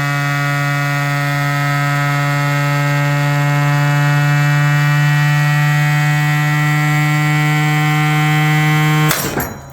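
Brushless DC motor spinning the GenX axial flux alternator rotor at speed, giving a loud, steady electrical hum with many overtones that edges slightly up in pitch; its 3D-printed magnet cage has just burst. About nine seconds in, a short noisy clatter, and the hum cuts off.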